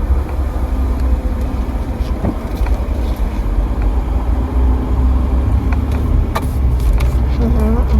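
Steady low rumble of a car's engine and road noise heard inside the cabin, with a couple of short clicks.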